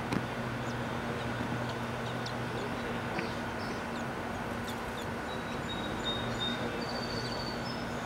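Outdoor backyard ambience: a steady machine hum with a noisy hiss under it, and faint short high bird chirps scattered through, with a thin high whistle about five to seven seconds in.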